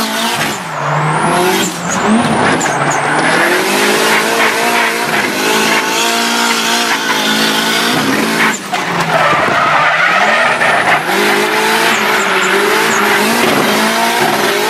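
Drift car's engine revving hard, its pitch climbing and dropping again and again, over tires squealing and skidding on the asphalt, heard from inside the car. About eight and a half seconds in, the revs briefly drop and then pick up again.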